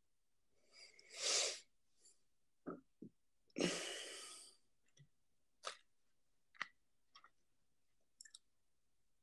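Small handling noises from a phone microphone: two short noisy bursts, a couple of soft knocks, then scattered sharp clicks and crinkles as a plastic water bottle is picked up and drunk from.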